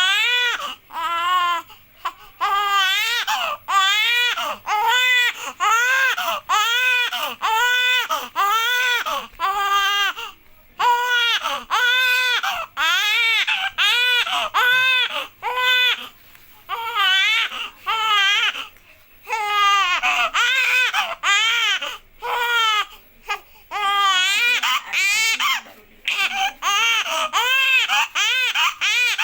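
Newborn baby boy crying hard: loud, rhythmic wails in quick succession, each rising and falling in pitch, with short gasps for breath between them and a couple of brief pauses.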